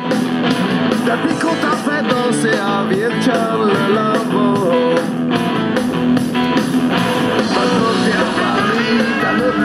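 Background music led by guitar, running at an even level.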